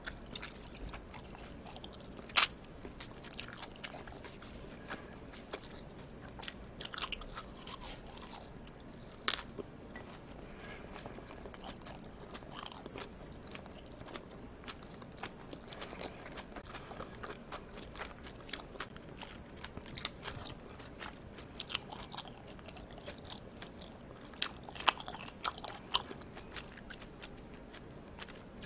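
Close-miked chewing of aged raw yellowtail amberjack sashimi wrapped in a perilla leaf: soft wet chewing with many sharp mouth clicks and smacks, the loudest about 2 seconds in and again around 9 seconds, with another run of clicks after 20 seconds.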